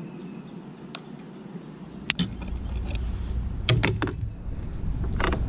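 Wind rumbling on the microphone, growing louder about two seconds in. Over it come a few sharp knocks and clatters from a person shifting about on a plastic fishing kayak.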